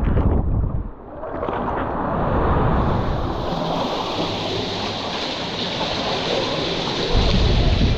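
Sea water sloshing and washing right at a microphone held at the water's surface, with low rumbling buffeting in the first second and again near the end.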